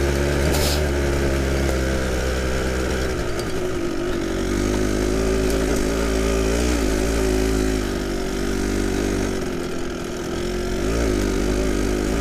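Kawasaki KDX220SR dirt bike's single-cylinder two-stroke engine running under way at low to moderate revs, its pitch rising and falling with the throttle.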